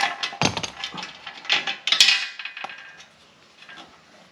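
Ratchet wrench clicking and metal tools clattering while the bolts of a Honda Grom's stock exhaust are worked loose, with a heavy knock about half a second in and a sharp click at about two seconds; quieter in the last second or so.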